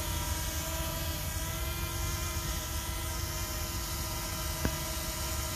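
DJI Mavic Mini's small propellers running steadily just after takeoff: a steady multi-tone buzzing whine over a low rumble. A single click about four and a half seconds in.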